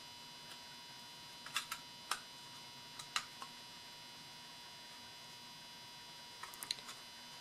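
Scattered light clicks and taps of small parts of a Saab 9-3 ignition switch being lined up and fitted together by hand, a few of them close together near the end, over a faint steady electrical hum.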